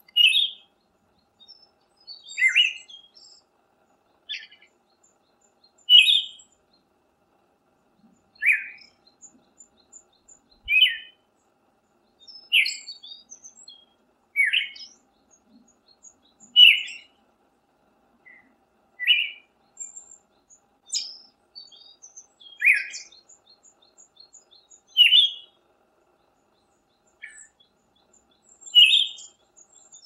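Male Siberian thrush singing: short, separate whistled phrases repeated about every two seconds, with silent gaps between.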